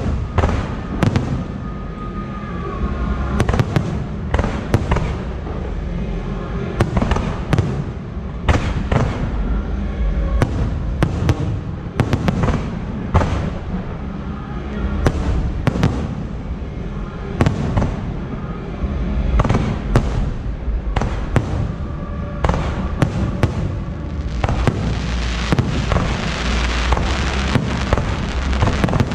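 Aerial fireworks shells bursting in quick, irregular succession: a steady string of sharp bangs over a continuous low rumble, turning into a denser crackling hiss near the end.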